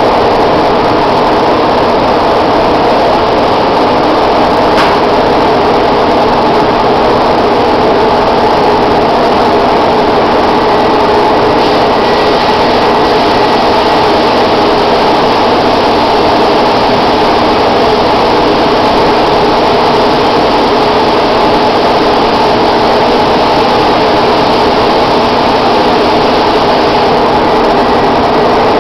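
Paint spraying equipment running without a break: a steady motor drone with a hiss of air, as when spraying a stain.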